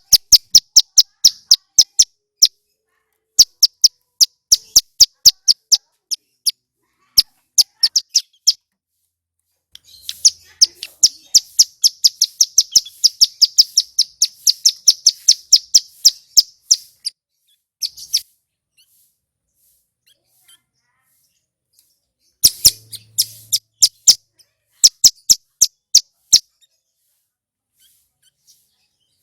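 Male ciblek gunung (mountain prinia) singing: runs of sharp, rapidly repeated high notes, a fast continuous trill for about seven seconds near the middle, and another short burst about three-quarters of the way through.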